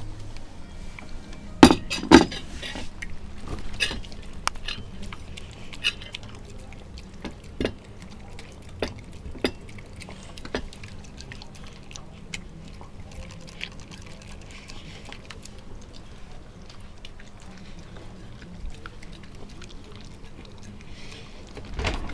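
Siberian husky licking a plate clean, the plate clinking and knocking as it is pushed about by its tongue. Two loud clatters come about two seconds in, then scattered knocks and clinks that thin out after about ten seconds.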